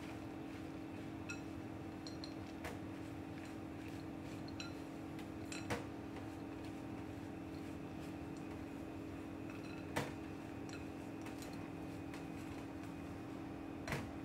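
A plastic spatula and scraper working stiff biscotti dough studded with whole almonds in a glass mixing bowl, with a few sharp clicks against the glass, three of them louder, about 6, 10 and 14 seconds in. A steady low hum runs underneath.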